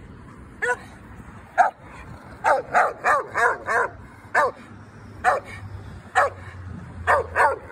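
Grey pit bull-type dog barking at another dog: about a dozen short, sharp barks, some single and spaced out, with a quick run of four or five near the middle.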